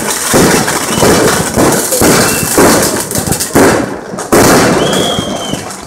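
Fireworks going off in a rapid series of loud bangs and crackles, with a brief high whistle near the end as the bangs die down.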